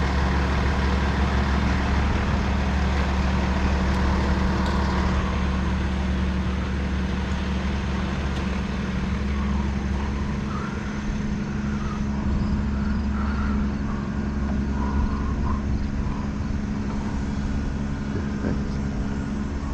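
A large engine idling steadily, a constant low hum that holds unchanged, from the gas-line crew's work vehicle or equipment.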